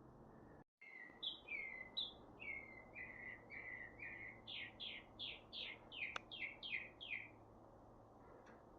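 A bird singing faintly: a series of short, falling whistled notes, about two or three a second for some six seconds, growing a little louder toward the end.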